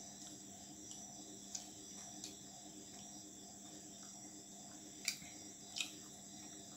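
Steady high chirring of crickets over a low steady hum, with a few short mouth clicks of chewing roti, the two loudest about five and six seconds in.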